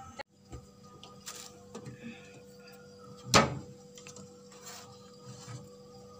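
Clicks and knocks of things being moved about inside an open refrigerator, with one loud knock about three and a half seconds in, over a steady hum.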